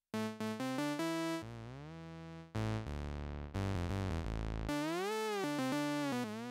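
Synthesizer instrument from the Maschine 2.5 factory library, played on a keyboard. A quick run of short notes is followed by longer held notes over a low bass line, with notes gliding up and down in pitch near the middle.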